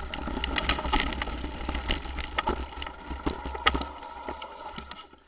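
Mountain bike riding a dirt and gravel trail, heard from an action camera mounted on the rider or bike: steady rumble of tyres and wind on the microphone, with irregular rattles and knocks as the bike goes over bumps. The noise dies down near the end as the bike slows.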